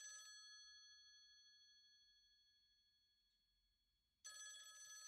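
Faint telephone bell: the end of one ring fades away over about three seconds, then after a second of silence the next ring starts about four seconds in.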